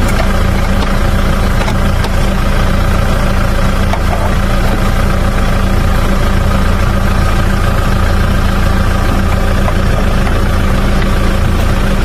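Car engine idling steadily, heard close up in the open engine bay: an even low hum that does not change.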